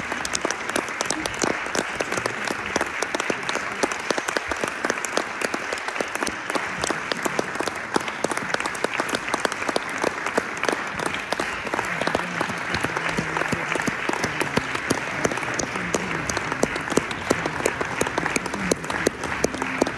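Concert audience applauding, many hands clapping in a steady, dense stream.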